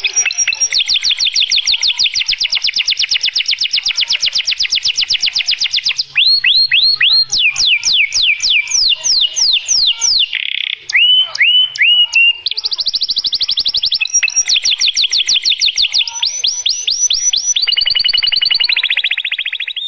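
Domestic canary singing a long varied song: a fast, even trill, then a series of loud whistles that sweep down in pitch, a few short falling notes, and another fast trill, ending on a held note.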